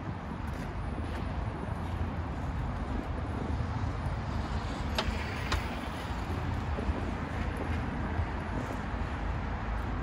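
Steady city traffic noise: a low rumble under a general hiss. Two sharp clicks about half a second apart come near the middle.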